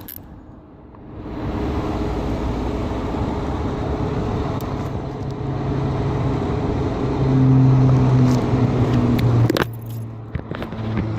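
Road traffic passing close by, building to a loud vehicle going past with a steady engine hum that drops away suddenly near the end, followed by a few clicks.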